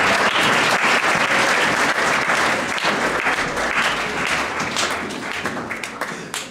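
Audience applauding, a dense clatter of many hands. It is loud at first and dies away over the last couple of seconds.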